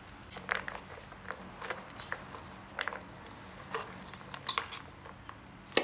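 A metal utensil scraping and clinking against an aluminium pot while stirring popcorn, in irregular strokes. The sharpest clinks come about four and a half seconds in and near the end.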